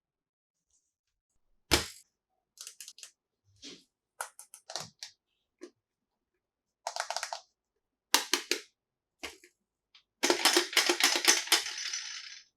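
Small plastic toy pieces being handled and knocked together. A sharp click comes about two seconds in, then scattered taps and quick runs of clacks, and a dense rattle of about two seconds near the end.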